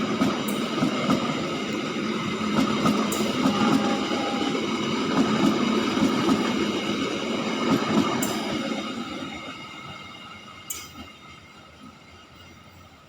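Passenger train running past on the rails: a dense rumble of wheels with steady high tones over it, which fades away over the last five seconds or so as the train moves off. A few sharp clicks sound through it.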